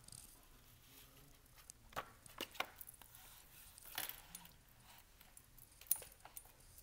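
A hardcover picture book's page being turned and pressed flat by hand: faint paper rustles and a few soft clicks, the clearest about two, four and six seconds in.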